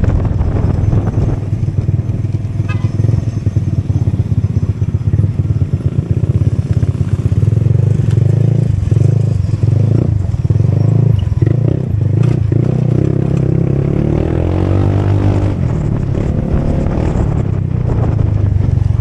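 Motorcycle engine and exhaust running while riding, its pitch rising as it revs up about fourteen seconds in.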